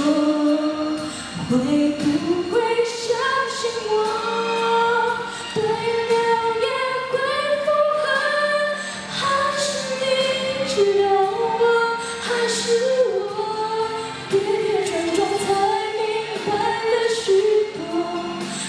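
A young woman singing a Mandarin pop ballad solo into a microphone over a backing track, holding long notes.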